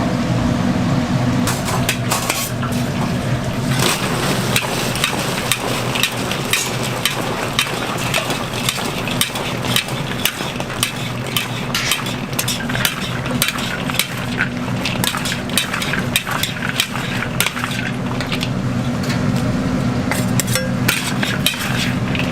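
Food sizzling in a hot pan while metal utensils stir, scrape and clink against it in many sharp strikes, over a steady low hum.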